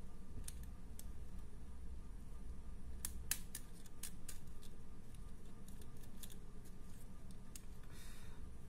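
Faint, irregular clicks and taps from a small plastic wind-up cat toy being turned over in the hands, with a brief soft rustle near the end.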